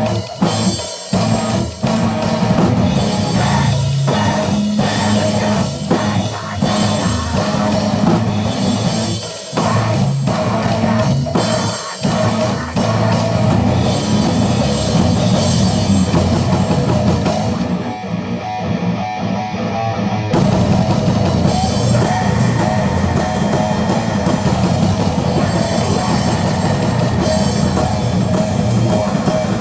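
Loud heavy rock music with a drum kit and guitar. About eighteen seconds in, the cymbals and highs drop out for a couple of seconds, then the full band comes back in.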